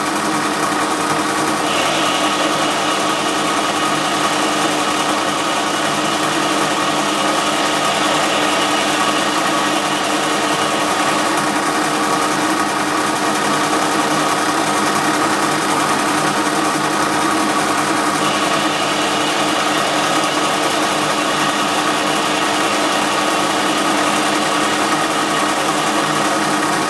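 Small bench metalworking lathe running steadily, its motor and gearing giving a constant hum with several tones, while the tool takes a slow-feed turning cut along a steel bar. A higher note joins about two seconds in and drops away after about eighteen seconds.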